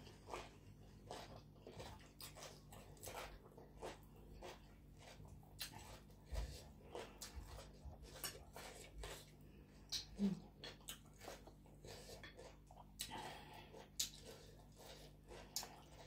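Close-up eating sounds: a person chewing papaya salad with chicken feet, with wet mouth smacks and a steady patter of soft, irregular clicks, and a few sharper clicks, one about ten seconds in and another about fourteen.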